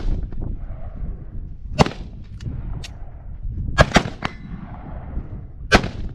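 Gunshots: sharp cracks, four loud ones about two seconds apart, two of them in quick succession near the middle, with a few fainter shots between them.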